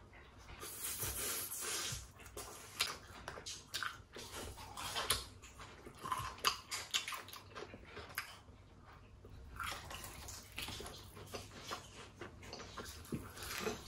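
A person biting into and chewing glazed fried chicken close to the microphone, in irregular bursts of short, sharp chewing and crunching noises.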